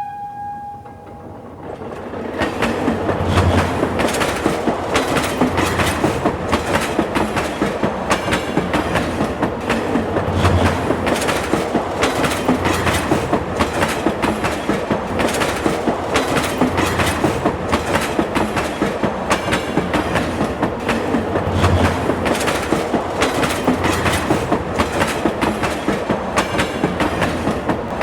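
Train running along the rails, its wheels clicking in a steady, rapid clickety-clack over the rail joints, with a heavier low thump every few seconds. A horn note dies away at the very start.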